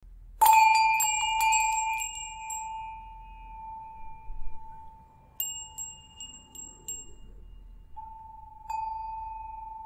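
Struck chime ringing: a sharp strike about half a second in rings on as one steady tone for several seconds, with light high tinkles over the first couple of seconds and again around the middle, and a fresh strike of the same tone near the end.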